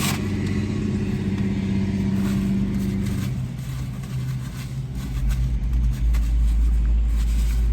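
Motor vehicle engine running with a steady hum; about three seconds in the hum changes, and around five seconds in a deep low rumble comes in and stays.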